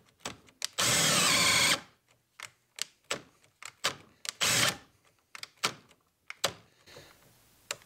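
Makita brushless drill driver with a 3/4-inch bit boring into a wooden 4x4, run in starts and stops. It runs for about a second near the start and briefly again around the middle, with short trigger blips between, as the drill stops under the load in the cut.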